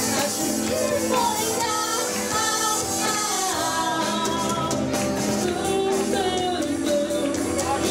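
Live pop band: two women singing into microphones over acoustic guitar, electric guitar and drums.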